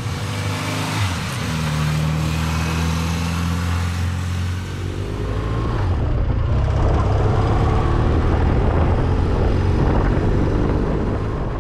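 Motorcycle engine under way, heard from the rider's seat, pulling through the gears. The pitch steps about a second in and again near five seconds, then climbs steadily.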